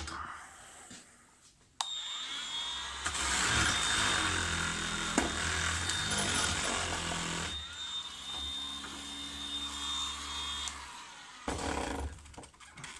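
Ozito 18V cordless random orbital sander starting up and sanding wood under heavy downward pressure, slowing a little without stalling. It runs for about nine seconds and cuts off, with a brief second run near the end.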